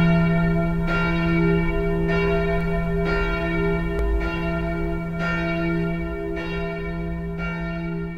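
Church bells ringing, struck about once a second over a long, deep humming ring that slowly grows quieter.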